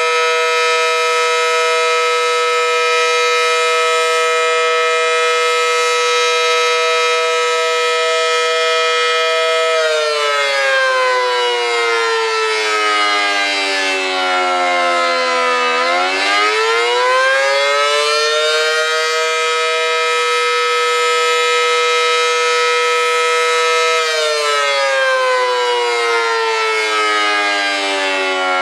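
Federal Sign & Signal Model 5T electromechanical warning siren with a 9/12-port chopper, sounding its two-tone chord. It holds a steady pitch, winds down in pitch, winds back up and holds, then winds down again near the end.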